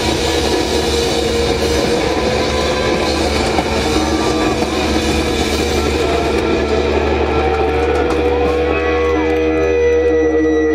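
Live pop-punk rock band playing: electric guitars and drum kit, with a steady low note held underneath.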